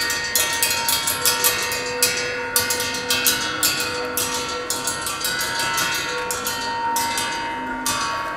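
Metal percussion instrument played live with quick, uneven strikes, each one leaving long bell-like ringing tones that overlap and hold.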